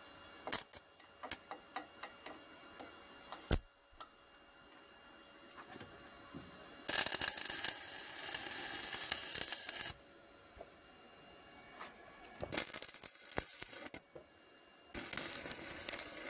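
Stick (arc) welding with a Paton ECO-200 inverter welder. Several short sharp ticks come as the electrode is tapped against the steel to strike and warm it. Then the arc crackles and hisses in three runs of a few seconds each, the first about seven seconds in.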